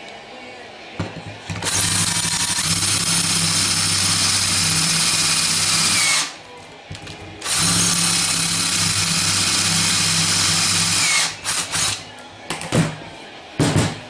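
Electric drill running a long 1/4-inch bit into a Powerglide transmission pump to drill the converter fill hole. It runs steadily in two spells of about four seconds each, with a short pause between, and winds down at the end of each. A few short knocks follow near the end.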